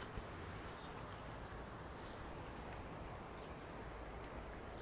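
Quiet outdoor ambience: a steady low hiss with a few faint, short bird chirps scattered through it.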